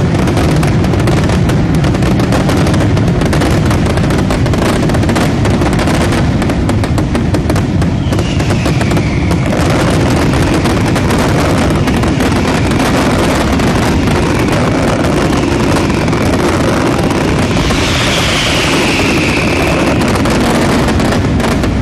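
Fireworks barrage: a dense, unbroken rapid crackling and banging of many shells bursting at once. Whistles falling in pitch cut through about 8 s in and again near the end.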